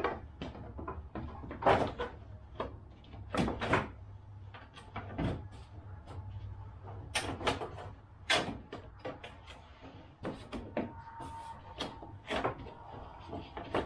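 Plastic front fascia and grille of a 2019 Jeep Grand Cherokee being pushed and worked back onto the front end: an irregular string of sharp plastic knocks, clicks and snaps, the loudest about two, three and a half, eight and twelve seconds in.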